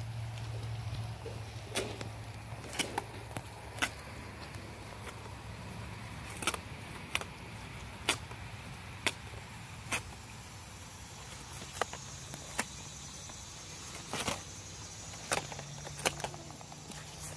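Goat biting and tearing at a piece of corrugated cardboard: short, sharp snaps and crackles at irregular intervals, about one a second, over a faint steady hum.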